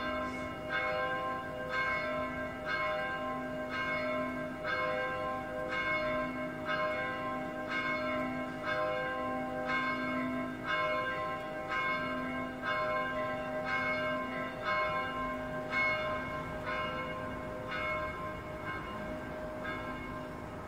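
Two church bells ringing a distesa (swung in full peal), their strokes interleaving about twice a second with each note ringing on. The ringing eases off slightly near the end.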